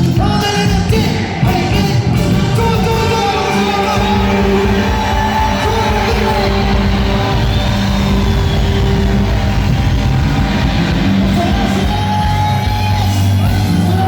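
Cumbia band playing, with a singer's voice over the music.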